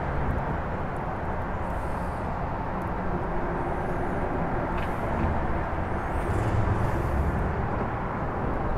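Steady rumble of highway traffic crossing the bridge overhead, swelling a little about two-thirds of the way through.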